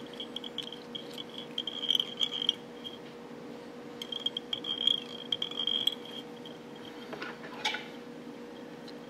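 A fly-tying bobbin paying out thread as it is wrapped around the hook, a high, fluttering chatter in two spells of wraps. A brief scratchy sound follows a little after seven seconds in.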